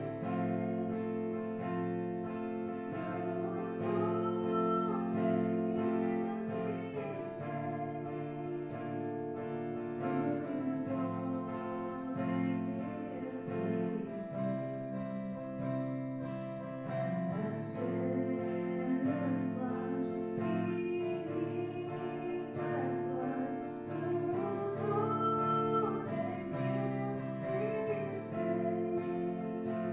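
Worship song in a church service: voices singing over strummed guitar and other instruments.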